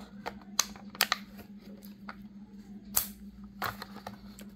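Plastic blister card of a diecast toy car being handled and opened with a blade: sharp clicks and crackles of stiff plastic and card, the loudest about three seconds in. A steady low hum runs underneath.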